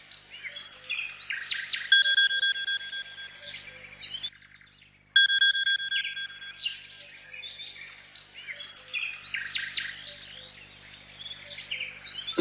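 Birds chirping and singing throughout, with an electronic alarm tone that beeps in a rapid pulsing run for about a second and a half, twice. Near the middle it drops out briefly.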